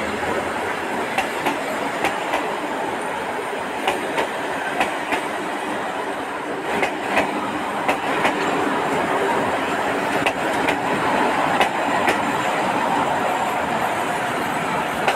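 Passenger coaches of a train rolling past at close range: a steady rolling rumble of steel wheels on rail, with sharp clacks at irregular intervals as the wheels cross rail joints.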